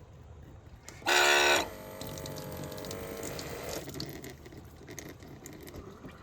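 Newly installed faucet turned on for a test. About a second in there is a brief loud whine as the flow starts, then water runs into the sink for a couple of seconds and eases off near four seconds in.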